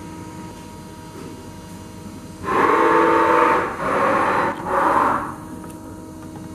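Three loud hissing bursts at a CNC lathe, starting about two and a half seconds in: the first lasts about a second, the next two about half a second each.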